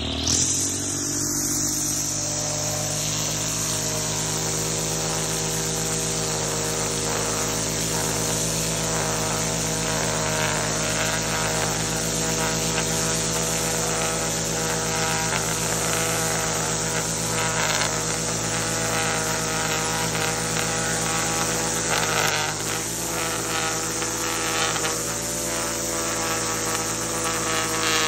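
String trimmer running at a steady high speed, its head turned on edge and its line cutting grass along a concrete curb. The pitch climbs right at the start and dips briefly about three-quarters of the way through.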